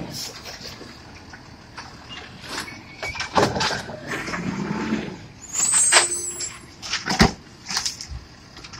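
Automated side-loading garbage truck's hydraulic arm lifting, emptying and setting down wheeled trash carts over the running truck engine. Several bangs and knocks of cart and arm come a few seconds in, with a short hydraulic whine and a high squeal around the middle.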